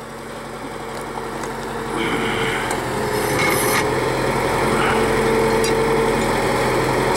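Drill rig's engine running steadily with a rough, rasping mechanical noise, building up in loudness over the first two seconds and then holding.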